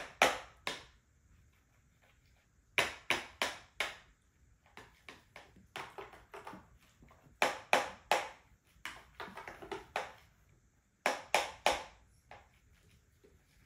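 Plastic straws and straw cups tapped and banged on plastic booster-seat trays by toddlers: sharp knocks in quick runs of three or four, with short pauses between the runs.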